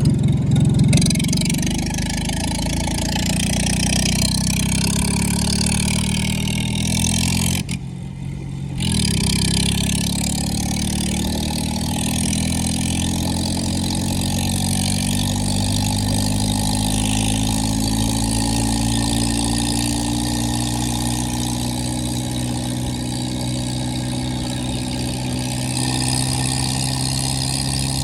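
Tractor diesel engine running with its silencer removed, loud and open. After a short break about eight seconds in, the engine note climbs slowly and steadily as it gathers speed.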